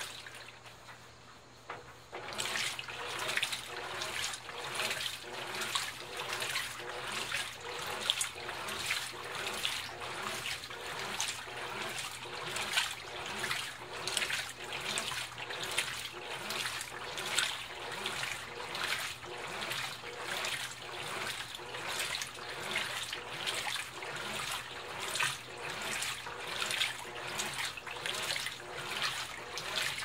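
Colormaq 15 kg top-loading washing machine agitating a load of jeans in its rinse water: rhythmic sloshing and splashing about twice a second over a steady low hum. The agitation is in a short lull at the start and picks up again about two seconds in.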